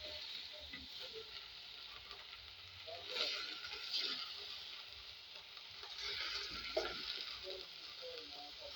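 Chopped sukuma wiki (collard greens) and onions sizzling in hot oil in a pan while being stirred, the sizzle swelling about three seconds in and again near the end.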